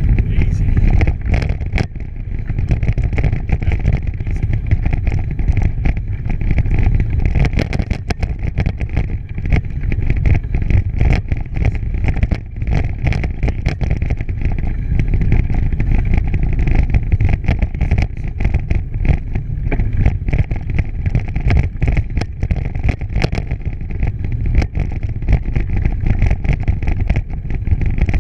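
Wind rumbling on the microphone over the rattle and crunch of a bicycle rolling fast along a track while pulled by dogs, with many small knocks and bumps.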